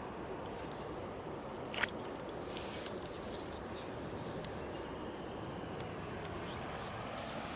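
Steady background noise with one short, sharp click a little under two seconds in and a few faint ticks.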